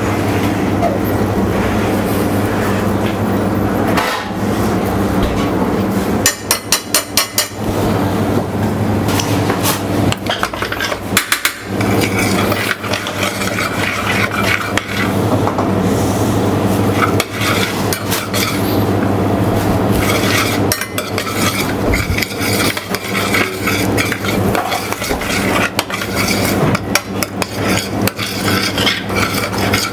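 Spoon stirring and scraping samphire risotto in a stainless steel saucepan, beating in butter and grated cheese to emulsify it as the last step of the risotto (mantecare). Runs of quick clicks come near the start and again about seven seconds in, over a steady low hum.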